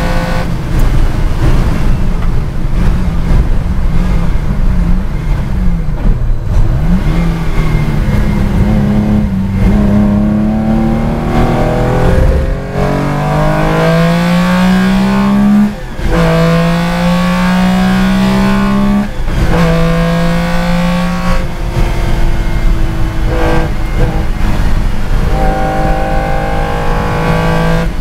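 Porsche 914/6 GT's flat-six racing engine heard from inside the cockpit on track. It slows from high speed, then accelerates hard out of a slow corner with the revs rising and three upshifts about three seconds apart, then runs steadily at speed.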